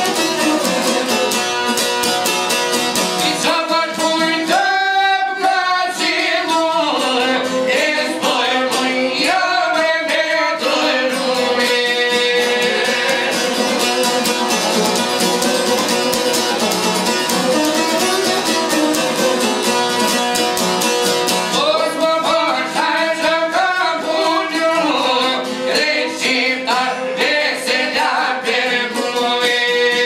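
Albanian folk song: men singing over a violin and plucked long-necked lutes, including a çifteli. The voice comes in a few seconds in and drops out near the middle for an instrumental passage, then returns about two-thirds of the way through.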